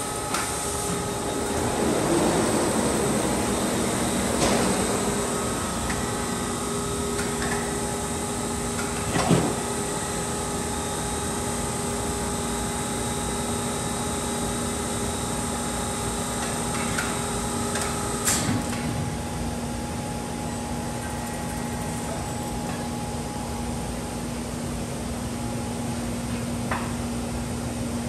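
Grundner automated panel storage gantry lifter moving a board over to the roller table and setting it down: a steady hum of drive motors with a few sharp clunks, the loudest about nine seconds in. Some of the motor tones stop with a clunk about eighteen seconds in, leaving a lower steady hum.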